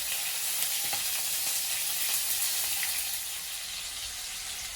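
Onion sautéing in hot oil in a pan, a steady sizzle with small crackles that eases a little about three seconds in.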